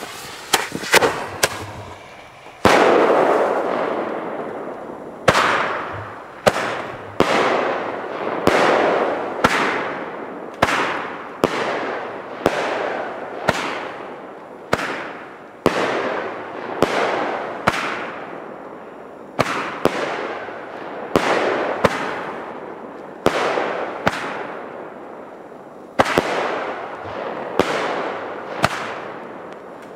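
Two 'Bazooka 2' roman candle tubes firing shot after shot, about one a second, with a short pause near the end. Each shot is a sharp pop followed by a hiss that fades over about a second as the spark-trailing comet climbs.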